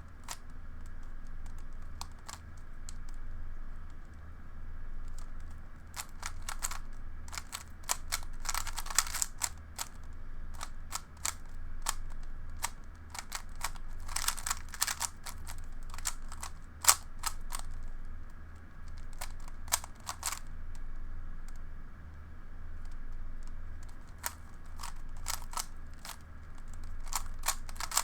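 Plastic puzzle cube being turned by hand: scattered sharp clicks, with two runs of rapid clacking about a quarter and half way through, over a low steady hum.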